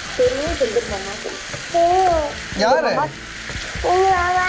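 Chicken simmering in a creamy sauce in a non-stick frying pan, a steady sizzle as a spatula stirs it, the chicken being cooked through. A high voice speaks in short snatches over it several times.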